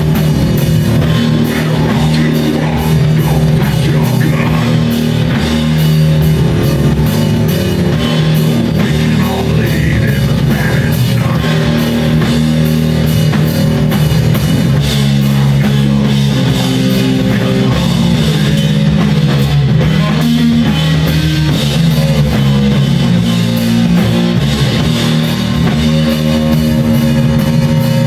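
A live rock trio playing loud heavy rock: electric guitar and bass guitar riffing over a drum kit.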